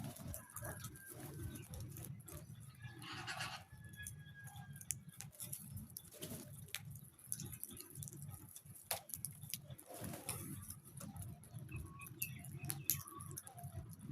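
Crows and hens moving about: scattered clicks and rustles, a few short flutters of wings and faint bird calls, over a steady low hum.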